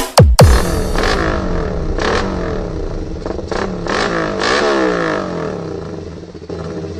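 A loud passage in a bass-heavy dance-remix demo track, built from rising and falling gliding tones that sound like an engine revving. A few sharp hits land about one, two and three and a half seconds in, and it fades near the end.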